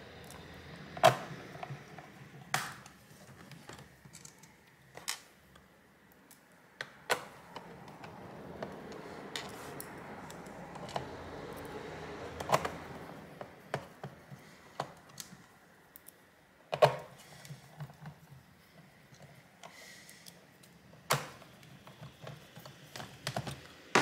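Small screws being driven back into a laptop's plastic bottom cover with a hand screwdriver: scattered sharp clicks and ticks of the screwdriver tip and screws, with faint scraping between them.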